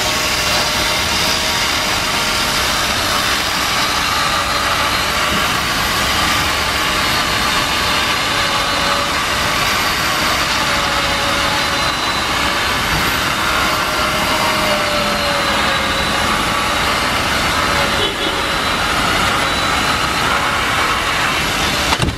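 A machine running steadily: an even, loud mechanical noise with a faint wavering hum.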